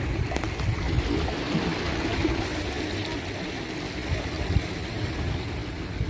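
Calm sea waves washing and lapping in a steady wash of water noise, with an uneven low rumble underneath.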